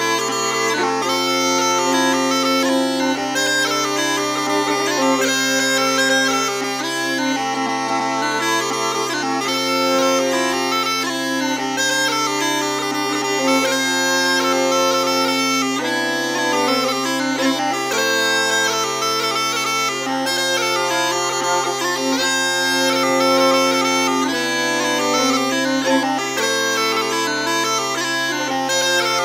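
Scottish smallpipes and a fiddle playing a tune together. The pipes' steady drone holds underneath a moving melody line, with the bowed fiddle alongside.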